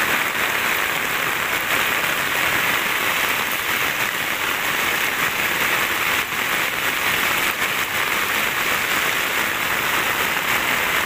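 Heavy tropical downpour: a steady, even hiss of rain falling hard on a paved road and roadside plants.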